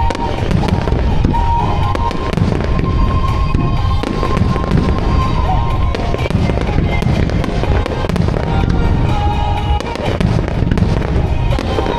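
A dense barrage of aerial firework shells booming and crackling in quick succession from a music-synchronised starmine display, with pop music playing over loudspeakers.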